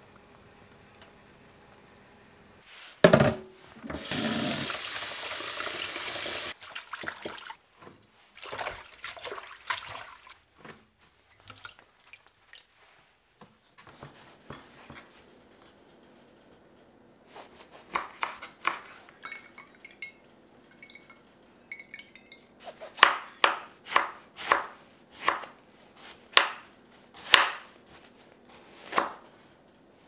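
Kitchen prep sounds: a knock of a ladle against a pot, then a few seconds of running water. Scattered clicks follow, and near the end a run of sharp knife strikes on a wooden cutting board, roughly one a second.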